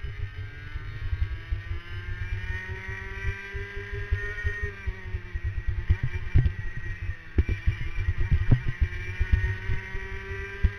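Racing kart's two-stroke engine heard from on board under full throttle: its pitch climbs steadily, drops as the kart slows for a bend about halfway through, then climbs again. Heavy low rumbling buffeting throughout, with a few sharp knocks near the middle.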